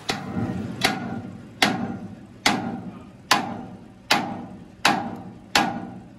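Sledgehammer striking steel on a crane boom section: eight heavy, evenly spaced blows a little under a second apart, each ringing briefly.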